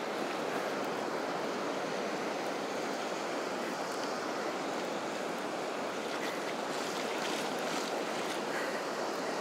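Small surf waves washing steadily onto the beach at the water's edge.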